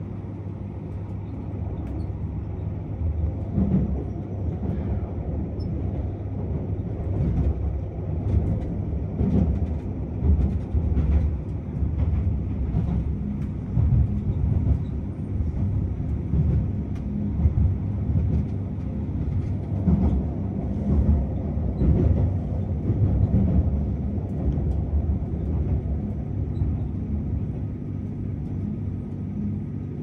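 Electric express train running, heard inside the passenger car: a continuous low rumble of wheels on rail with irregular knocks. It swells through the middle and eases over the last several seconds as the train slows to arrive at its terminus.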